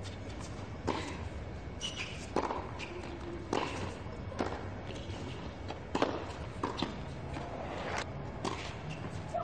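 Tennis balls struck by rackets and bouncing on a hard court during a baseline rally, a sharp pop about every second, with short shoe squeaks between shots and low crowd murmur.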